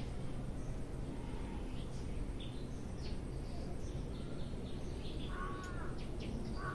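Small birds chirping in short, repeated calls, and a crow cawing once about five seconds in, over a steady low rumble.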